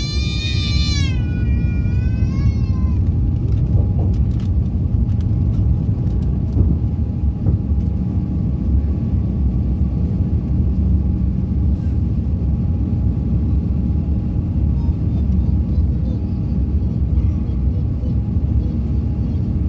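Steady low rumble of an Airbus A350's jet engines and airflow heard inside the cabin while the airliner climbs after takeoff. Over the first three seconds a high, wavering cry rises and falls above the rumble.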